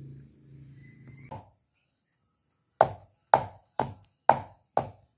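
A pestle pounding a jering bean flat on a wooden board: five sharp knocks, about two a second, in the second half.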